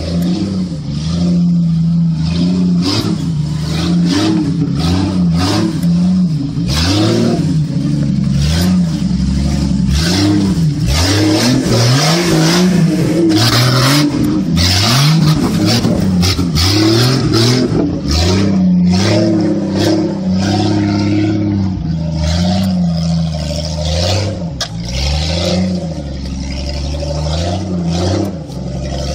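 Jeep Cherokee XJ's engine revving up and falling back again and again under load as it crawls up a steep, rocky dirt climb on mud tyres, with scattered knocks and clatter from the tyres and undercarriage on the rocks.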